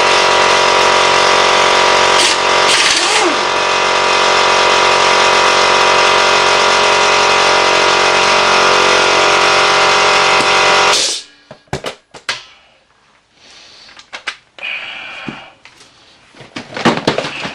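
Air compressor motor running steadily, then cutting off abruptly about eleven seconds in. After that come scattered light metallic clinks and knocks, with a louder cluster of them near the end.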